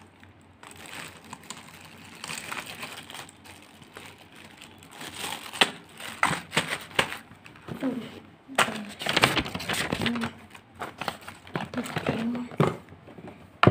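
Small plastic bags of plastic game chips crinkling and rustling as they are handled, with scattered clicks and taps, getting louder about halfway through.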